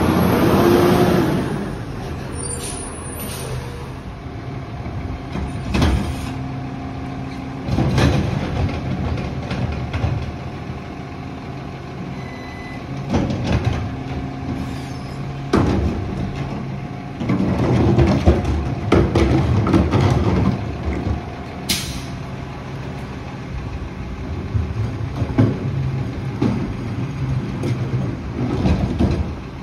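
Split-body Lodal garbage truck working its collection route: the diesel engine runs steadily under a held hydraulic whine, with several loud clanks and bangs of carts being emptied. A short, sharp air-brake hiss comes about two-thirds of the way through.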